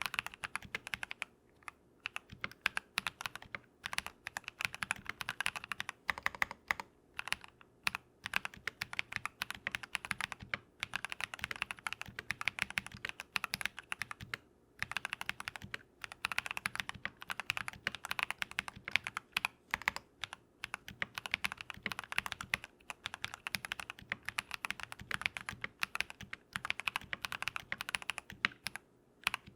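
Continuous typing on a Keychron V1 mechanical keyboard with lubed Drop + Invyr Holy Panda tactile switches: dense runs of keystrokes, several per second, broken by short pauses between bursts.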